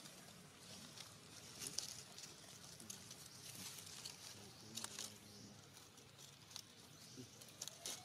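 Faint outdoor ambience: scattered soft crackles and ticks over a low hum, with a slightly louder tick about two seconds in and another about five seconds in.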